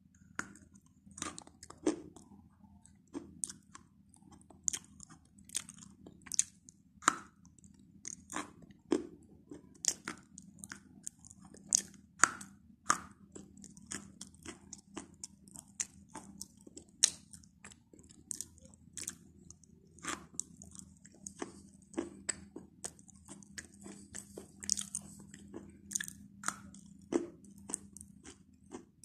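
A stick of white chalk being bitten and chewed close to the microphone: a long irregular string of sharp, dry crunches, roughly one every second.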